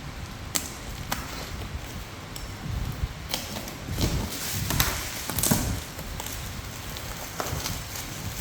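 A parcel box being handled by hand: scattered sharp clicks and taps with light rustling, the busiest stretch a little past the middle.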